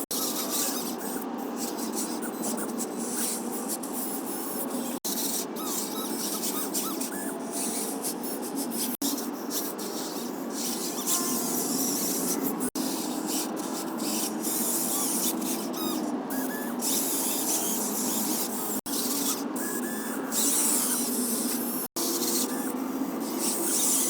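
Huina 1583 1:14 RC metal wheel loader's electric motors and gearing whirring and rasping steadily as it works dirt, broken by a few instant dropouts.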